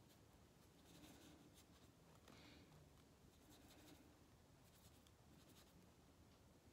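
Near silence, with a few faint strokes of a paintbrush working paint onto a canvas.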